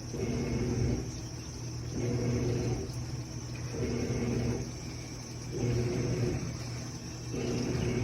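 General Electric washing machine agitating: its motor hums in pulses of just under a second with short pauses between, about every two seconds, over a steady low hum.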